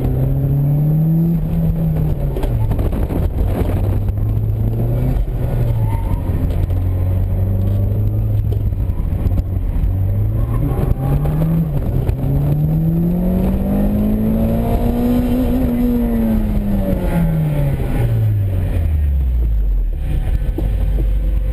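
1991 Toyota MR2 Turbo's turbocharged 2.0-litre four-cylinder engine, heard from inside the cabin under hard driving. Its revs rise and fall repeatedly, then make one long climb to their highest point about two-thirds of the way through. After that they wind down to a low drone near the end.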